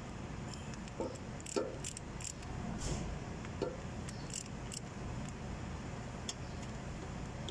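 A handful of short metallic clinks and taps from tools and small metal parts being handled during repair work, over a steady low hum. The clinks cluster in the first half, with one more near the end.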